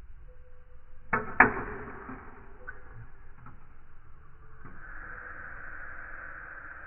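Two sharp clacks about a third of a second apart, a little over a second in, each with a short ring, as of marbles striking on the run, then a steady hissing rush that starts near five seconds in.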